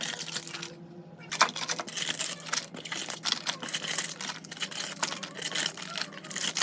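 Plastic grocery packaging crinkling and rustling as it is handled, with a sharp knock about a second and a half in and a steady low hum underneath.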